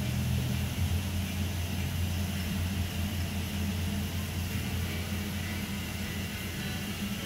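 Steady low mechanical hum with a few fixed low tones, under an even hiss.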